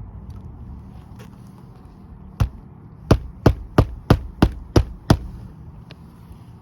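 Hammer driving a roofing nail into a replacement shingle: a single blow, then a quick run of about seven strikes, roughly three a second, that ends a little past five seconds in.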